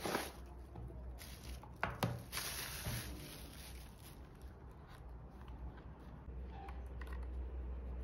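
Unboxing noises: a small cardboard box and plastic wrap handled as a fabric lint shaver is taken out, with a few sharp taps and a burst of rustling in the first three seconds, then quieter handling.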